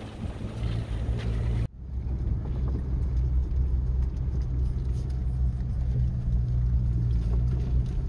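Suzuki Sidekick's four-cylinder engine running steadily as the 4x4 drives a dirt track, a low drone heard from inside the cab. Before it, about a second and a half in, a rush of wind and rain on the microphone cuts off abruptly.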